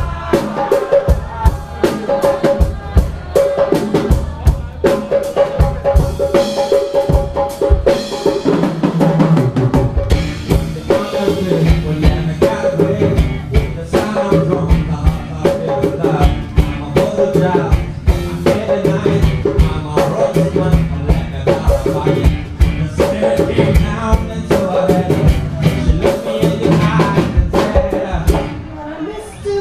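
Live konpa band playing: a drum kit with kick, snare and rimshots keeps a steady, dense groove under pitched instruments, with a lower bass part joining about nine seconds in.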